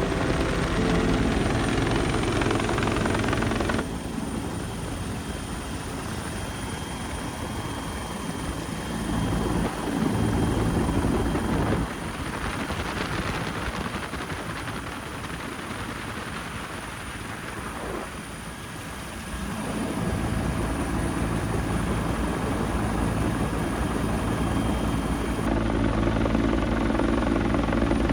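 Bell UH-1 Huey helicopter running: steady rotor and engine noise, with sudden shifts in loudness and tone every few seconds.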